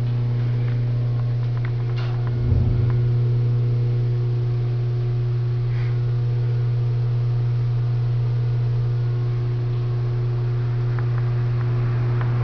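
Steady low hum with a few fainter steady overtones above it. There is a single click about two seconds in and a short low thump just after.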